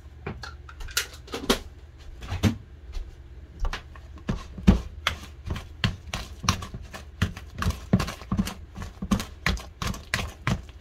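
Mashed pumpkin dough being mixed and kneaded by hand in a plastic bowl: uneven knocks and taps against the bowl, about two or three a second.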